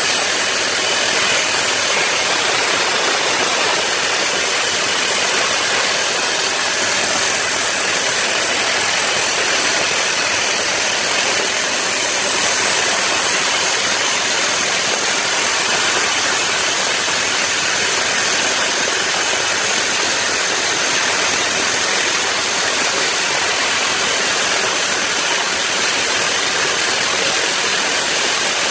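Soosan hydraulic drill rig running steadily: an even, loud engine and machine noise with a constant high hiss, unchanging throughout.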